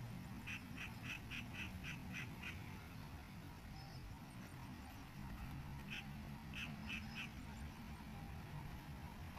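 Faint animal calls in the background: a quick run of short repeated calls, about four a second, and a shorter run later.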